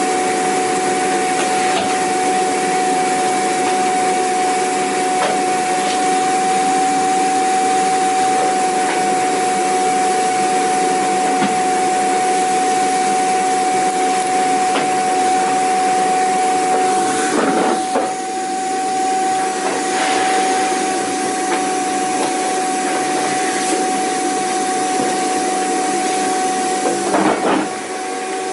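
Vacuum cleaner running steadily: a loud, even rushing hiss with a constant high motor whine. The sound briefly wavers twice, a little past halfway and near the end.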